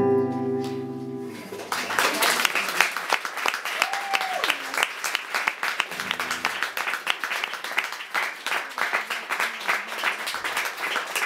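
A held sung note with guitar ends the song about a second in, then an audience applauds for the rest of the time, fading just at the end.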